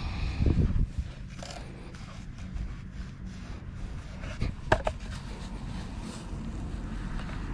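Handling noise as a battery string trimmer is carried on foot: a knock and rustle in the first second, sharp clicks a little before the five-second mark, over a low steady rumble.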